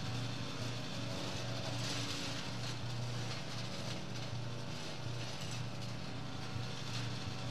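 Small petrol engine of a garden wood chipper running at a steady, even pitch while pruned branches are fed into it.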